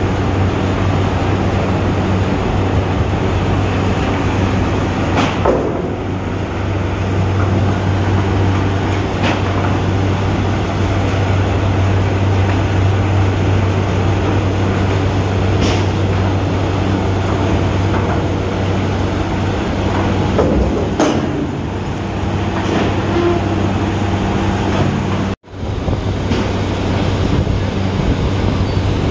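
Heavy sugar-mill machinery running steadily, a clattering din over a low hum, with a few sharp metallic clanks. The sound drops out for an instant near the end.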